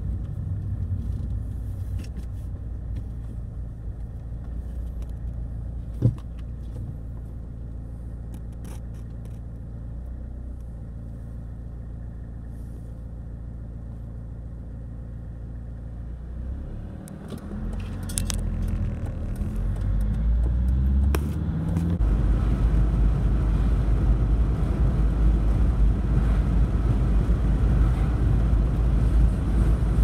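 Mercedes-Benz car driving, heard from inside the cabin: a steady low engine and road rumble with a single click about six seconds in. About two-thirds of the way through the engine pitch rises as the car accelerates, and the tyre and road noise then stays louder.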